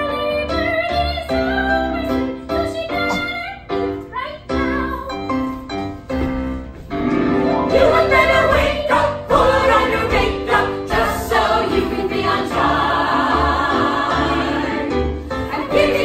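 Live stage-musical number: singing over accompaniment, with more voices coming in as a chorus about seven seconds in, the sound growing fuller and louder.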